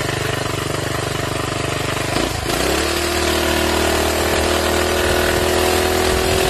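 Minibike's small gas engine running under way. About two seconds in, the pitch dips briefly, then climbs and holds steady at a higher, louder pitch as the throttle opens. Wind hiss on the microphone runs underneath.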